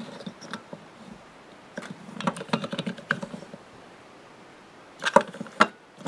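Small plastic toy monster truck being handled in the fingers, giving runs of light plastic clicks and rattles: a dense run about two seconds in and another short cluster near the end.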